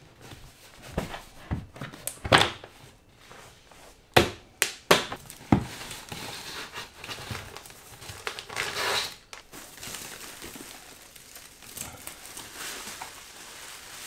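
Unboxing of a cardboard shipping tube: a few sharp knocks and taps, then cardboard packing and bubble wrap crinkling and rustling as they are pulled out.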